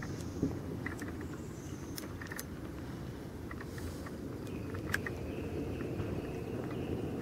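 Outdoor lakeside ambience: a steady low rumble with scattered faint clicks, and a thin high tone that comes in for a second or two past the middle.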